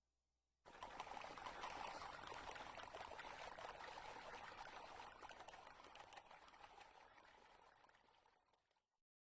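A rushing hiss with a fine crackle in it starts suddenly under a second in, then slowly fades out over the next seven or eight seconds.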